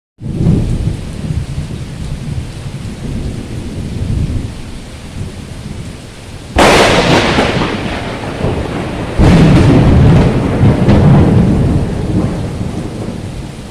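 Heavy tropical rain in a thunderstorm, with two sudden claps of thunder, about six and a half and nine seconds in, each rumbling away over a few seconds.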